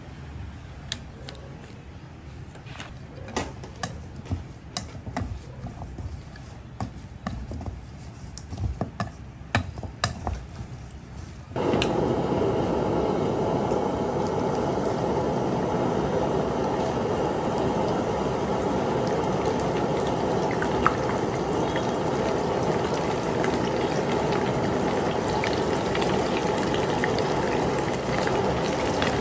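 Light clicks and taps of chopsticks against a steel mixing bowl. About a third of the way in this gives way suddenly to a loud, steady sizzle of pieces of porcupine puffer fish deep-frying in a wok of hot oil.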